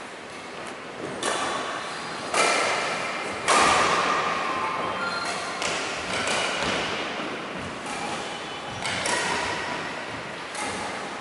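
Badminton rackets striking a shuttlecock back and forth in a doubles rally: a string of sharp hits, roughly one every second or so, each ringing on in the echo of a large hall.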